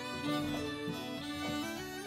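Instrumental background music carried by a fiddle, with sustained notes that change pitch every fraction of a second.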